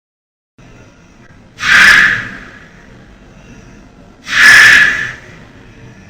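A person snoring: two loud snores, each just under a second long, about two and a half seconds apart, with faint breathing noise between them.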